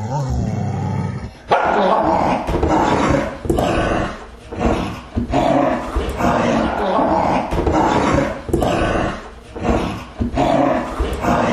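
A dog growling low for about the first second and a half, then barking over and over, roughly two barks a second.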